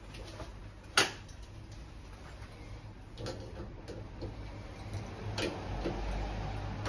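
A few sharp clicks and taps of metal fittings as a filling-loop hose with a pressure gauge is hand-fitted to valves on copper boiler pipework, the loudest click about a second in, over a low steady hum.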